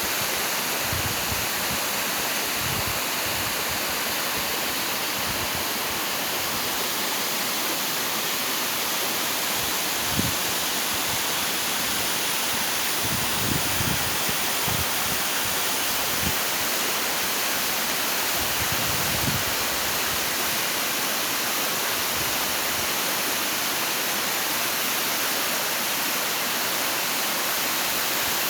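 Waterfall rushing in a steady, even roar of falling water, with a few brief low thumps on the microphone.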